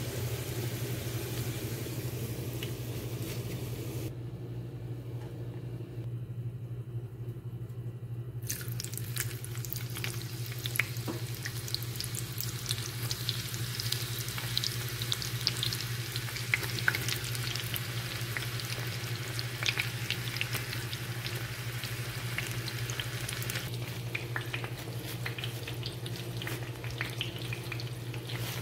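Sliced onions frying in hot oil in a pan: a steady sizzle with many sharp pops and crackles, thinning out for a few seconds about four seconds in, then coming back dense. A steady low hum runs underneath.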